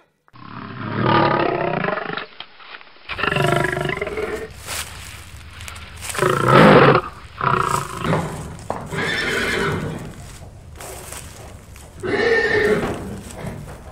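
A run of separate loud animal calls, each about a second long. The last one, about twelve seconds in, is a horse neighing.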